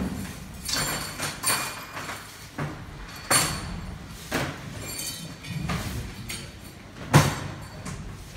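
Irregular knocks and metallic clinks, about a dozen in all, some with a brief ringing; the loudest thumps come near the start and about seven seconds in.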